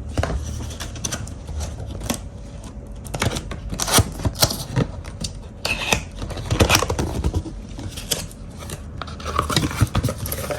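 The grinder's packaging being opened and handled: irregular scrapes, tearing and clicks.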